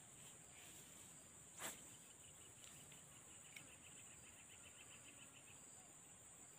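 Near silence with a faint, steady, high-pitched drone of insects. A brief run of rapid faint chirps comes in the middle, and one short sharp sound comes about one and a half seconds in.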